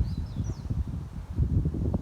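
Wind buffeting the microphone in uneven gusts, with a small bird chirping a quick twittering phrase in the first moment.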